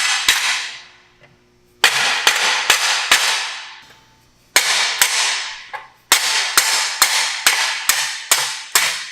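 Dead blow hammer striking a Strange 40-spline axle in a Moser 9-inch rear end to drive it out of the housing, with no slide hammer to hand. Sharp metallic blows that ring out briefly, in three bursts of quick strikes with short pauses between.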